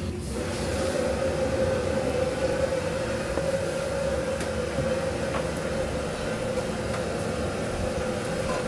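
Steady drone of commercial kitchen equipment: a held mid-pitched hum over a low rumble, with a few faint clicks.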